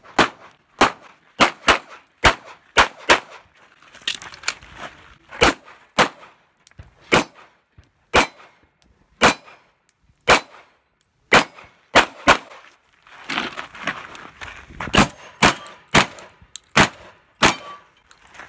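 Pistol fired rapidly, about two dozen shots in singles and quick pairs, with a denser string near the end. Steel plate targets ring when they are hit.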